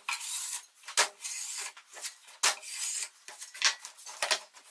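Repeated short scraping and wiping strokes on a wooden hexagonal tube as wet glue squeeze-out is cleaned off with a putty knife and paper towel. A few light knocks come from the wood being handled on the table.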